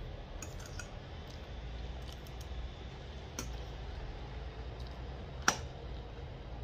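Metal fork clinking and scraping against a ceramic plate while picking up food: a few light clicks, then one sharp clink about five and a half seconds in. A steady low hum runs underneath.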